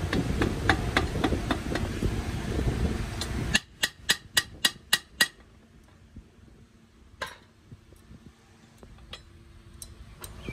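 Sharp metallic taps and clinks of metal parts and tools over a steady low machine noise. The machine noise cuts off abruptly about three and a half seconds in. A quick string of about six taps follows, then a few scattered ticks.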